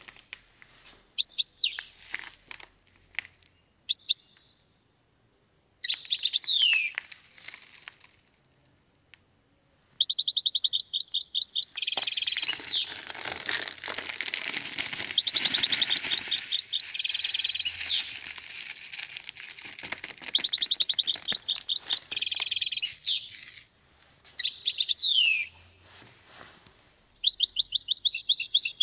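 European goldfinch singing: a few short whistled calls at first, then long runs of fast trills mixed with sharp up-and-down whistles, broken by short pauses.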